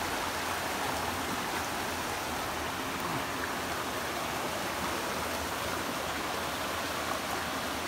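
Rocky stream running over stones in small cascades: a steady, even wash of water.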